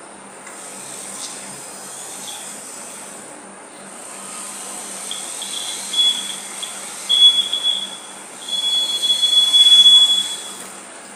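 Homemade self-balancing scooter's max-speed buzzer sounding a single high steady tone. It comes as several short beeps from about five seconds in, then one long tone of about two seconds near the end, a sign that the scooter is at its speed limit. The low hum of the drive motors runs beneath it.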